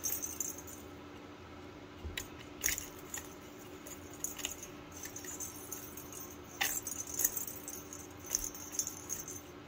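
Small bell ball inside a cardboard accordion cat scratching board jingling and rattling now and then as a cat paws at it, a handful of brief jingles spread over several seconds.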